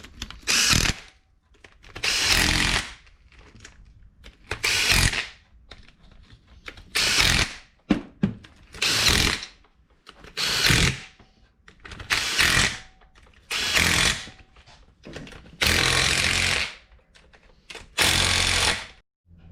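A hand-held power tool run in about ten short bursts, roughly one every two seconds, with brief pauses between.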